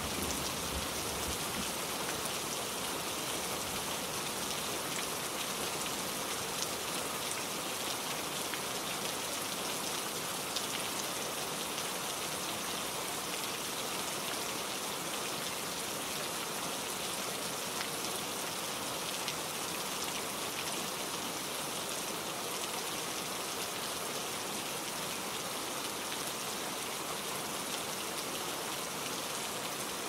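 Steady rain falling on leaves: an even hiss with scattered drop ticks and the odd louder drip.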